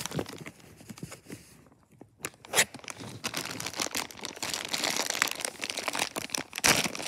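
Figure packaging being handled: crinkling and crunching of plastic and cardboard as the figure is taken out. Quieter at first, with a sharp click about two and a half seconds in, then steady rustling.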